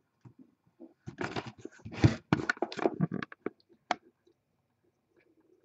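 Close handling noise: about two seconds of rustling and scraping, then a few single sharp clicks.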